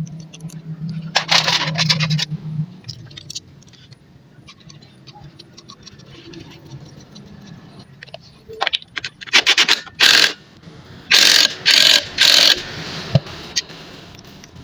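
Metal scraping during work on a motorcycle cylinder: a low steady hum for the first couple of seconds, then repeated short, loud scraping bursts, several in quick succession in the second half.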